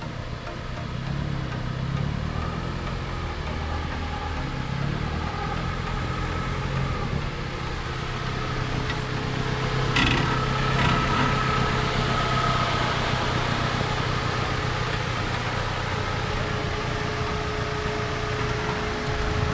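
Off-road 4x4's engine running steadily, with a single sharp knock about halfway through.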